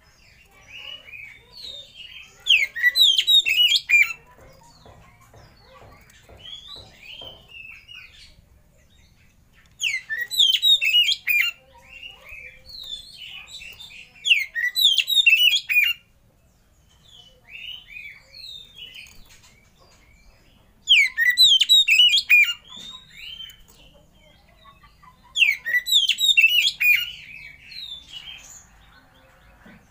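Oriental magpie-robin singing: five loud phrases of rich whistles and quick trilled notes, each a second or two long, with softer scattered notes in the gaps between them.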